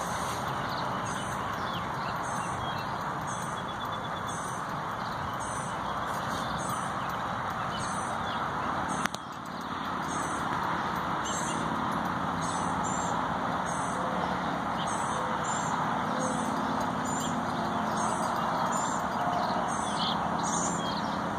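Outdoor ambience: a steady rushing background with a small bird chirping one high note over and over, about once a second. There is a single sharp click about nine seconds in.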